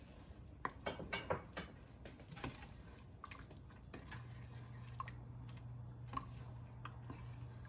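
Silicone spatula stirring coconut-milk chicken curry in a stainless steel pot: faint wet sloshing with scattered light scrapes and taps against the pot, busiest in the first couple of seconds.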